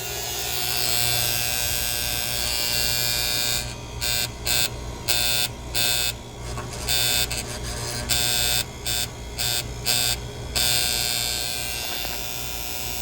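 Air-conditioner single-pole contactor buzzing as the unit is called on from the thermostat, a steady electrical buzz that the technician puts down to a loose cap on the cheap contactor. A louder hiss cuts in and out irregularly from about four seconds in to near the end.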